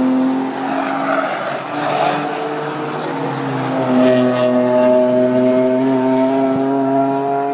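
Racing car engine at high revs through a corner: the engine note gives way to a rough, noisy stretch about a second in, then comes back and rises steadily as the car accelerates away.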